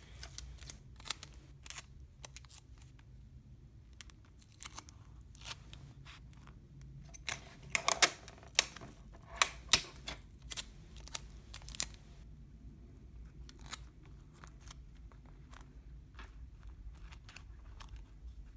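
Paper cubes being joined with clear sticky tape: a scatter of small clicks, taps and tape tears as the tape is pulled, torn and pressed onto the paper. The handling is busiest in the middle.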